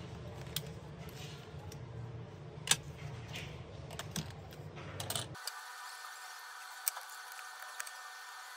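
Scattered small clicks and taps of laptop parts being handled during a RAM module upgrade, the loudest about three seconds in. About five seconds in, the background changes abruptly to a thin steady hum.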